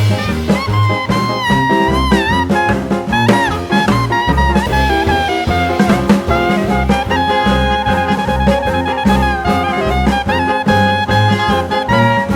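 Background music in a jazz/swing style: a brass lead line, saxophone-like with pitch bends, over a walking bass and drum kit.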